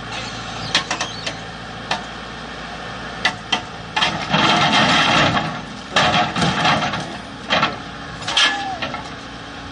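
Backhoe loader engine running steadily under a few sharp knocks and clanks. About four seconds in comes a loud, rough crash, followed by more heavy knocks, as the large pole it was lifting comes down to the ground.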